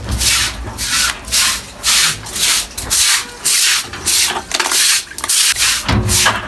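Rhythmic brushing strokes of a stiff brush scrubbing a pig pen floor, about two strokes a second, during cleaning of the pen.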